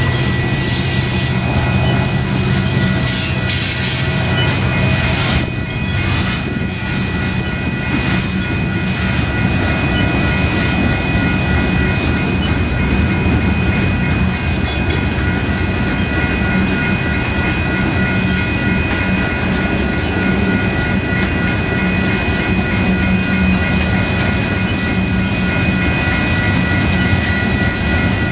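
Union Pacific manifest freight train's hopper and tank cars rolling past a grade crossing, a steady, loud rumble and clatter of steel wheels on rail. Steady high-pitched tones ring over the rumble.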